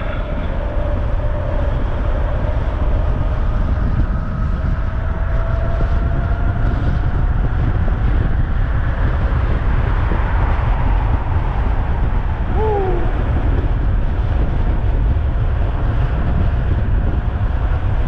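Heavy wind buffeting the microphone of a 72-volt electric bike at high speed, with a faint electric-motor whine that climbs slowly in pitch and fades out about halfway through.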